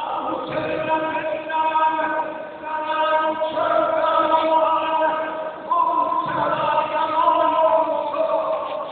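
Male voices chanting a Shia Ashura lament in long held notes, with a new phrase beginning a little past halfway.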